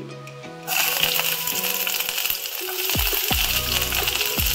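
Sliced garlic dropped into hot mustard oil in a wok, sizzling steadily from about a second in, with a few light knocks in the second half.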